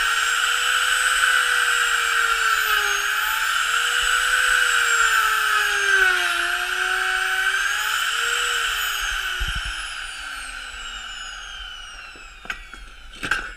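Electric router running at high speed while boring a hole into the edge of a board, its whine dipping in pitch twice as the cutter bites, then switched off and spinning down about two-thirds of the way through. A few sharp clicks near the end.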